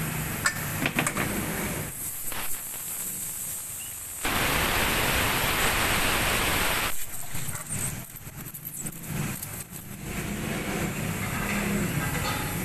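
Compressed air hissing steadily out of a punctured car tyre for about three seconds, starting about four seconds in, as the object stuck in the tread is pulled out. Light clicks of handling come before it.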